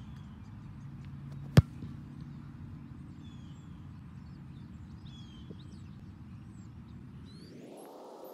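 One sharp, loud thump of a foot punting an American football, about a second and a half in, over a steady low background rumble with faint high chirps.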